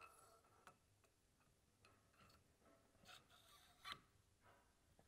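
Near silence with a few faint, scattered metal clicks and taps, the loudest about four seconds in, as the rotating part of a mechanical shaft seal is fitted by hand onto a steel pump shaft.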